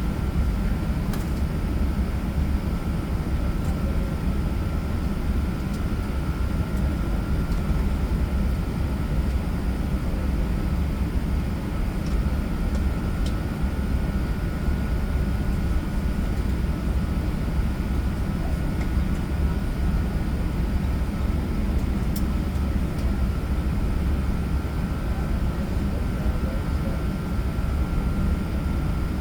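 Steady aircraft noise of an Airbus A380-800 heard from inside the cabin: a strong, even low rumble of engines and airflow, with a faint steady high tone above it and no change in pitch or loudness.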